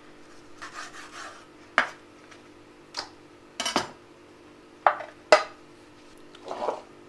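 Chef's knife working through raw chicken thigh on a bamboo cutting board, with soft scraping, then several sharp knocks and clatters of the knife and board against the counter as they are set down and moved. A faint steady hum underneath.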